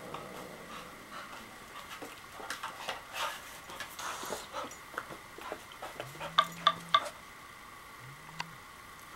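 A spaniel and a cat play-fighting: scuffling and paws knocking, with a short hiss from the cat about four seconds in. Three sharp taps a little past the middle are the loudest sounds.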